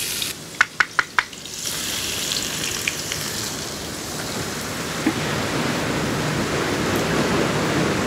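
Chopped garlic sizzling as it hits hot oil in a wok, stirred with a wooden spatula. It opens with four quick sharp knocks about a second in, then a steady sizzle sets in and keeps building.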